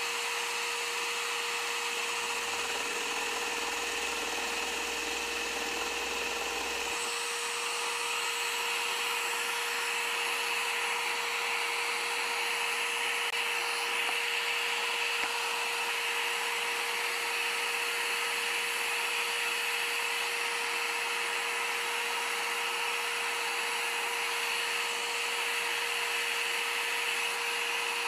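Electric scroll saw running steadily, its blade stroking up and down, with a constant motor hum; the sound shifts slightly about seven seconds in.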